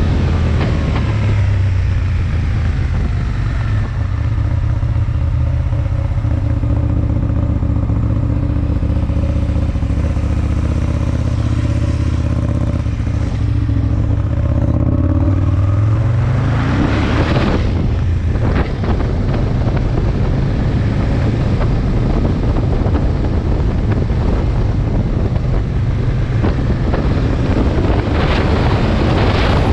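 Aprilia Tuono 1000 V-twin engine running on the move, holding a steady note for about fifteen seconds, then revving up sharply as the bike accelerates. After that, wind rushing over the microphone covers most of the engine, with another rise in revs near the end.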